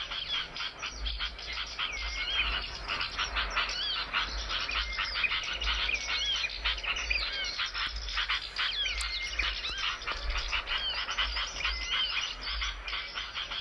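A dense chorus of small songbirds chirping and twittering without pause, many quick notes overlapping with short curved whistles.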